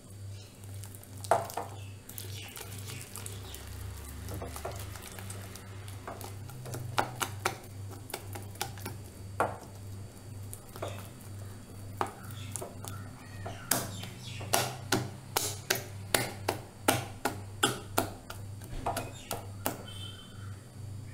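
Hand mixing and beating thick maida-and-curd batter in a glass bowl: wet squelching with sharp knocks against the glass, scattered at first, then settling into a steady beat of about two strokes a second in the second half. A steady low hum lies underneath.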